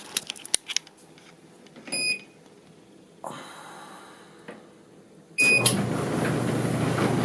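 Kenmore HE2 front-loading dryer being started: a few button clicks and a short beep from the control panel, then about five and a half seconds in another beep and the motor and drum start running with a steady rumble, turning on its newly fitted belt.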